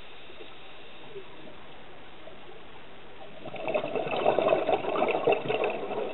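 Scuba diver's exhaled bubbles from the regulator, heard through an underwater camera housing: a steady low hiss, then from about three and a half seconds a louder burst of bubbling and crackling.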